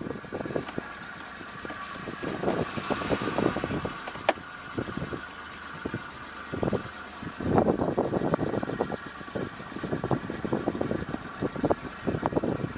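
Car engine running unevenly in irregular pulses over a faint steady whine, as it struggles to start.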